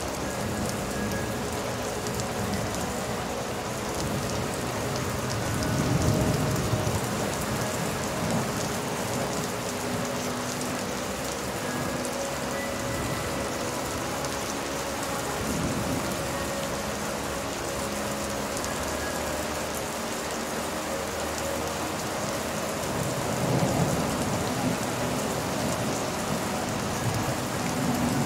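Steady rain falling, with low rolls of thunder swelling up a few times, loudest about six seconds in and again near the end.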